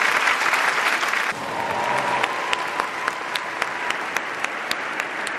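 A large audience applauding. About a second in, the sound cuts to thinner applause with separate sharp claps, and a faint steady tone runs under it for a couple of seconds.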